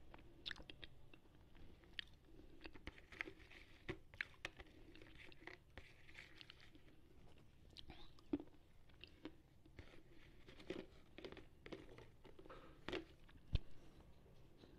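Slate pencil being bitten and chewed: many faint, sharp crunches and crackles, irregular and scattered, picked up close by an earphone microphone held at the mouth.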